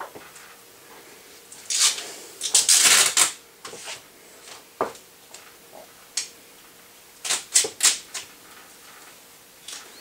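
Metal duct pipe clattering and scraping as a section is handled and pushed into place overhead. There are two clusters of sharp rattles and scrapes, about two seconds in and again around seven to eight seconds, with a few lone clicks between.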